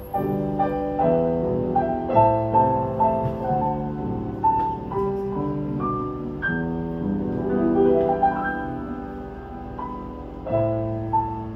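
Grand piano played solo: the instrumental introduction to a chanson, with struck chords under a slow melody line.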